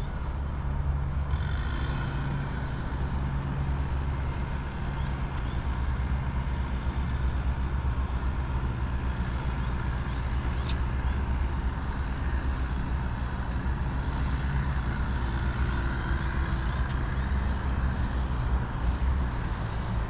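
A large road vehicle's engine, such as a truck's, running steadily close by, with a low drone that holds level throughout.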